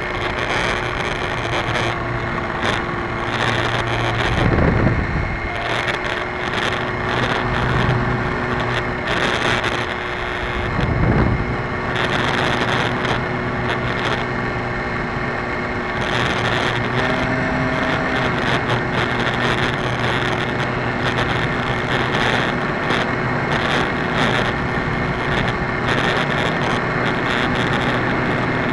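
Electric RC airplane's motor and propeller running steadily in flight, heard from the camera on board with a constant tone over wind rushing across the microphone. Two louder gusts of wind noise come about 5 and 11 seconds in.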